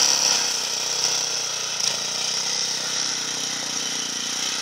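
Small engine of a Leshy 2x2M two-wheel-drive motorcycle running steadily as the bike rides off through snow.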